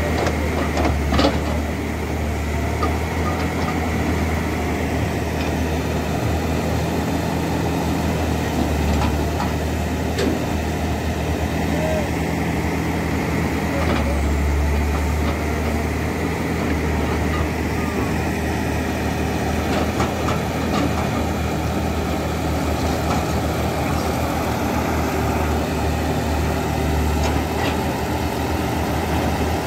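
Caterpillar E200B excavator's diesel engine running steadily, its low drone swelling briefly as the machine works its hydraulics, with a few short sharp knocks.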